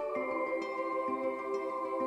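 Ambient new-age background music: layered sustained tones, with a new soft note entering about every half second.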